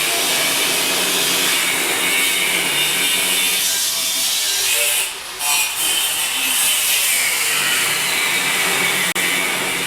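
A handheld power tool running steadily on the bodywork, with a short drop in load about five seconds in and a momentary cut-out near the end.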